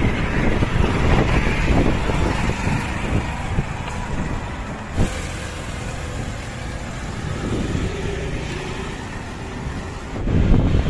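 Road traffic on a bridge: passing vehicles make a steady noise, with wind rumbling on the microphone. A single sharp click about halfway through, and the low rumble gets louder near the end.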